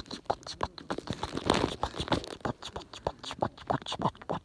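Bonfire crackling: quick, irregular pops and snaps, with a brief hiss about one and a half seconds in.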